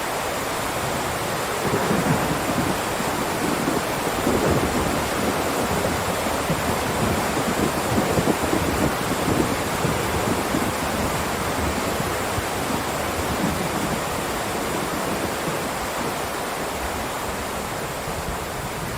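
Heavy rain downpour, a steady dense hiss, with low rumbling swells through the first half.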